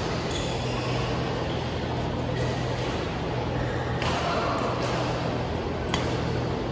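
Steady background noise of a large sports hall with a low, even hum, and a single sharp knock about six seconds in.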